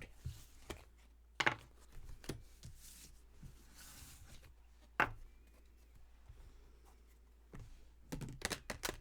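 Tarot cards being handled on a table: a few sharp taps and soft ticks as cards are laid down, then a quick run of clicks and rustles near the end.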